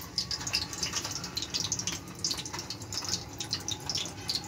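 Whole boiled eggs frying in a little hot oil in a pan over a low flame: a steady sizzle with many irregular small pops and crackles.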